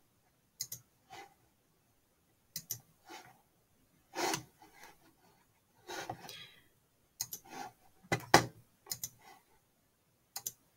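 Computer mouse clicking: about a dozen short clicks at uneven intervals, some in quick pairs.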